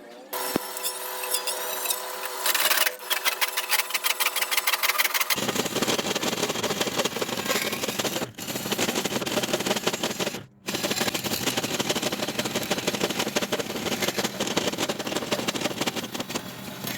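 Milling machine running and cutting, a fast, even rattle of many ticks a second. About five seconds in it becomes fuller and deeper, with two short breaks later on.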